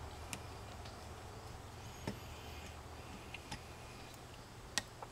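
A few light, sharp clicks of a metal screwdriver against the terminal screw and metal strap of an electrical outlet as a wire is worked under the screw. The loudest click comes near the end, over a low steady hum.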